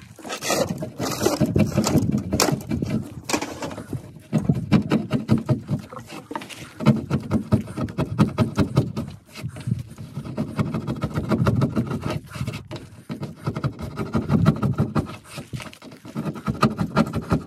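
Plastic trim-removal tool chipping and scraping cured black window urethane off the painted metal of a Nissan NV3500 van's back-window frame: a fast run of scratchy clicks, in spells with short pauses.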